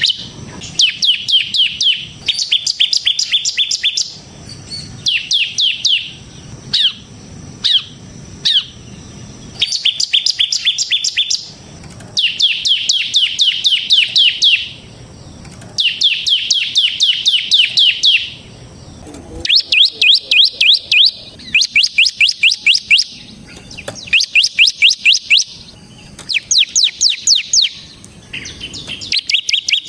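Bar-winged prinia (ciblek) singing in rapid runs of sharp, repeated high notes, each run about one to three seconds long with short pauses between.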